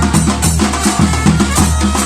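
Batucada drum ensemble playing, with deep bass drums beating a steady rhythm under lighter percussion.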